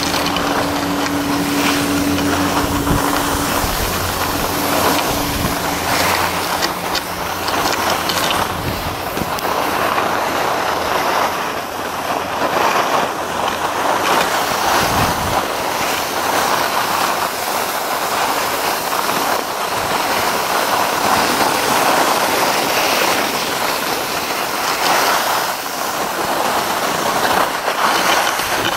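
Skis sliding and scraping on packed, groomed snow, with wind rushing over the microphone in uneven swells. A steady hum is there for the first few seconds and then fades out.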